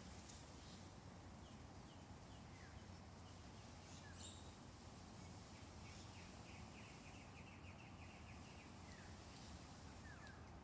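Faint outdoor ambience: a steady low background hum with scattered short bird chirps, and a quick rattling trill of about eight notes a second about two-thirds of the way through.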